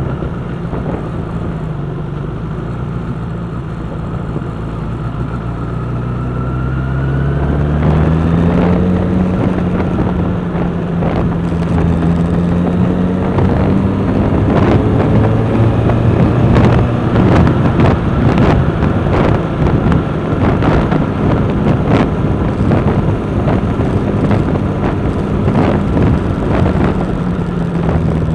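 Motorcycle engine heard from an on-board camera. It picks up speed with a rising pitch about seven seconds in, then runs steadily at speed with wind rushing over the microphone, and its pitch drops near the end as it slows.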